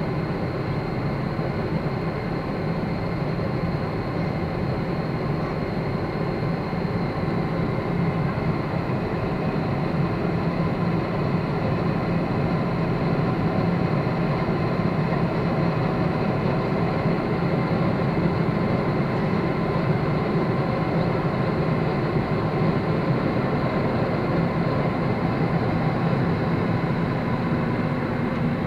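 Boeing 777-300ER's GE90-115B turbofan engines running at climb power just after take-off, heard inside the cabin: a steady rushing engine and air noise with a faint high whine over it.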